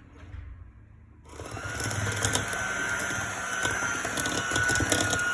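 Electric hand mixer switched on about a second in and running steadily with a constant high whine and a scatter of clicks, beating cake batter in a bowl.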